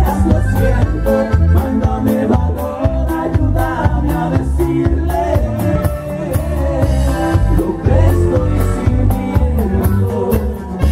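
A live conjunto band playing, with a voice singing the melody over a steady, regular bass beat.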